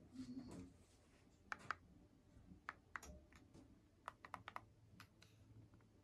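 A brief rustle, then a scatter of small plastic clicks: a pair about a second and a half in, two more near three seconds, a quick run of five around four seconds and a last one near five. These are the buttons of a handheld ceiling-fan remote being pressed.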